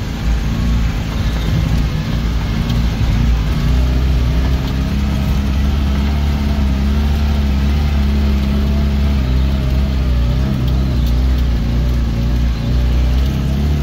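Off-road 4x4's engine pulling steadily in first gear through a deep, washed-out rut, its note holding nearly constant with slight wavers.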